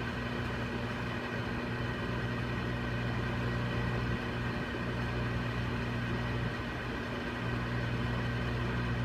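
Microwave oven running with a steady hum while it heats a bar of soap.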